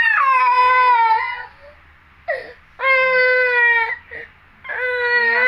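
Baby crying: three long wails at a fairly steady pitch, with short pauses between them.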